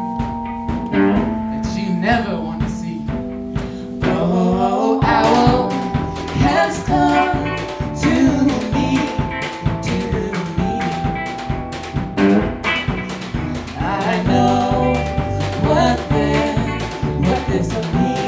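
A small band playing a slow song live: electric guitar, a keyboard holding chords, and drums, with a voice singing over it.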